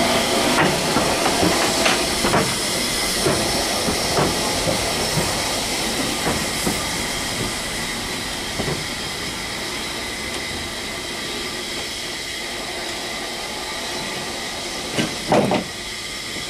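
Southern Railway S15 class 4-6-0 steam locomotive No. 847 moving slowly past, with a steady steam hiss and scattered clanks and knocks from its wheels and motion that fade as it draws away. One short loud thump comes near the end.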